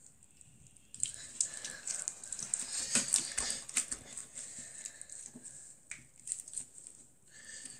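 Slime being squeezed and pulled between the fingers, giving quick small clicks and crackles that start about a second in and thin out near the end.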